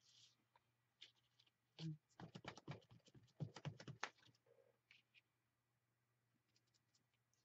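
Faint, irregular quick taps and clicks from a foam makeup sponge and a plastic stencil being handled and dabbed on a craft table. They are bunched in the middle and trail off, over a faint low hum.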